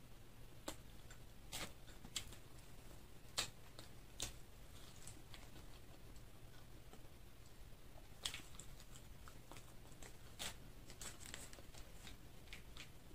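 A person chewing fried chicken close to the microphone: quiet mouth sounds with sharp clicks and smacks scattered through, over a faint steady low hum.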